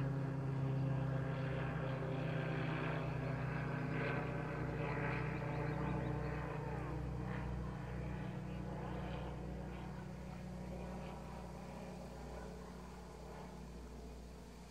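A steady engine drone that fades slowly away, as from a motor vehicle or aircraft passing at a distance.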